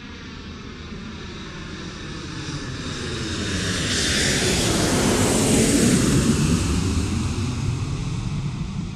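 A jet aircraft passing over: a rushing engine noise that swells to its loudest about five to six seconds in, then fades away.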